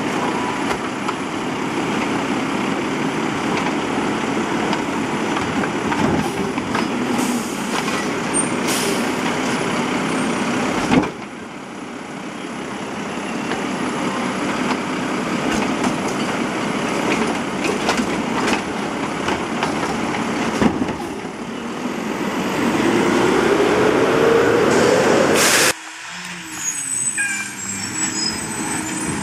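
Mack automated side-loader garbage truck running, its engine revved to drive the hydraulic arm that grips, lifts and tips a wheeled trash cart into the body, with a few sharp knocks and short hisses of air. Near the end the engine pitch rises steadily, then stops abruptly.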